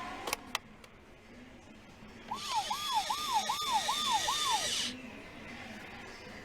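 Two sharp clicks, then the Dickie Toys rescue helicopter's electronic sound effect: a fast wailing siren of six quick rising-and-falling sweeps over a hissing rotor noise. It lasts about two and a half seconds and cuts off suddenly.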